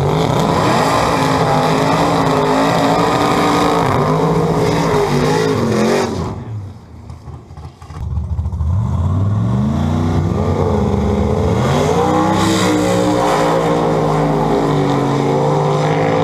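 Twin-turbo big-block Chevrolet V8 drag car engine running loud with wavering revs, dropping off sharply for about two seconds near the middle, then climbing steeply in pitch as the car launches and holding a high, steady drone as it runs down the strip.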